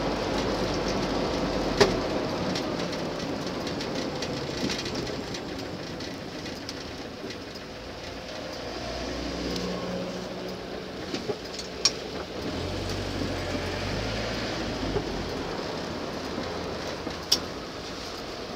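Land Rover Series II driving, heard from inside the cab: engine and road noise that eases off as it slows to a stop, then runs steadily at rest. A few sharp clicks or rattles sound over it, one near the start and two more later on.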